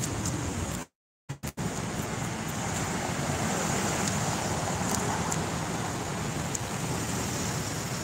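Steady rumble of city street traffic. The audio cuts out completely for about half a second around a second in, then comes back.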